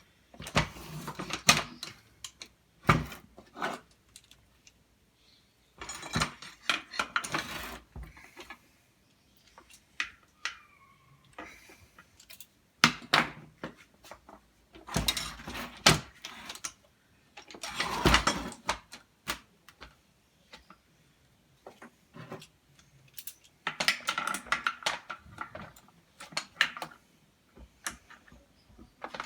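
Torque wrench ratcheting and clicking in several separate bursts with pauses between, as the bolts holding a jet ski's impeller housing to the venturi are tightened to 16 foot-pounds.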